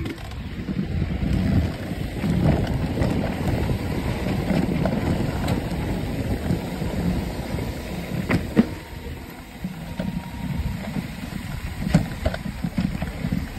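Mountain bike riding down a dusty dirt trail: wind buffeting the microphone over the rumble of the tyres on dirt, with a few sharp knocks and rattles from the bike over rough ground, about eight and a half seconds in and again near the end.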